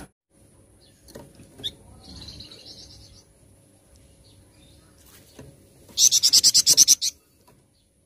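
Songbird kept as a 'flamboyan' calling: a short high chirp and a brief warbled phrase, then a loud, fast run of about a dozen high chirps lasting about a second near the end.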